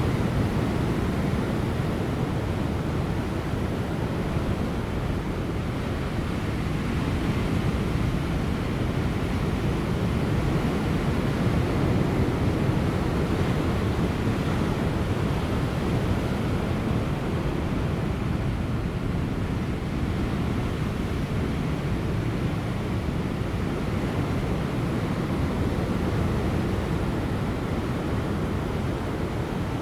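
Large ocean waves breaking on offshore rocks: a steady, deep rush of surf that swells and eases slowly, with light wind.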